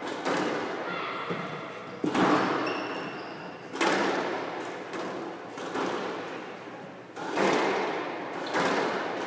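Squash rally: the ball is struck by rackets and hits the walls, with a loud echoing smack about every one and a half to two seconds.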